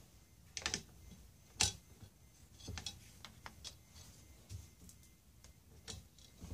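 Light, irregular metal clicks and taps from a socket extension and torque wrench being handled, fitted together and set onto a throttle body bolt.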